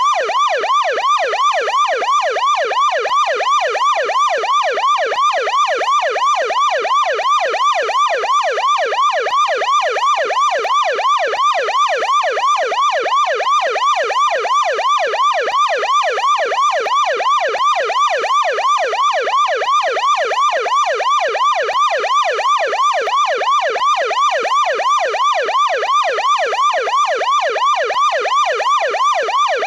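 American police car electronic siren in deep-toned yelp mode: a rapid rising-and-falling wail, about three sweeps a second, repeating steadily without a break.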